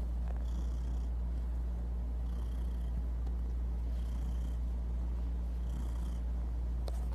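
Domestic cat purring steadily up close, a low continuous rumble with a soft breathy rasp coming back about every second and a half as it breathes.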